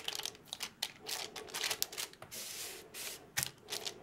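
Fingertips pressing and patting cake dough into a springform pan lined with baking paper: irregular light taps and crackly rustles, several a second.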